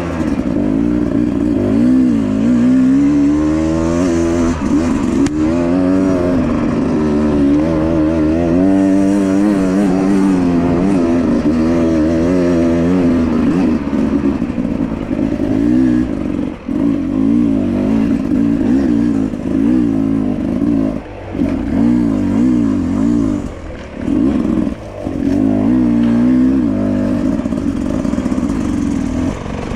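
Enduro motorcycle engine being ridden off-road, its pitch rising and falling continually as the throttle is worked. The throttle is briefly shut off a few times in the second half.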